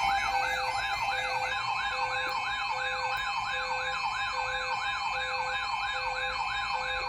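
Electronic emergency alert tone announcing a river flood warning: layered synthesized tones, with a siren-like sweep rising about twice a second over steady high tones and a low beep pulsing on and off.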